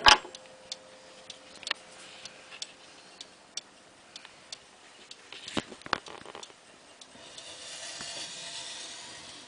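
Junghans pendulum wall clock ticking steadily, about one clear tick a second, while the last of a chime's hum fades out in the first second. A loud knock comes right at the start and two sharp knocks about six seconds in, with a soft noisy hiss over the last two seconds.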